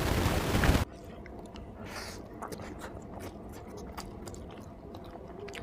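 A loud rushing noise cuts off abruptly a little under a second in. It is followed by close-miked chewing: many small wet clicks and smacks of a mouth eating.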